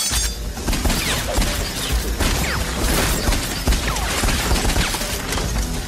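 A film gunfight: dense, rapid, unbroken handgun and rifle fire with impacts, starting suddenly and loud, with a deep boom underneath.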